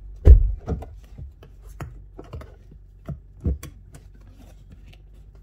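Handling noise from a phone being picked up and moved about: a sharp knock about a third of a second in, then a few lighter, irregular knocks and rubs over the next three seconds.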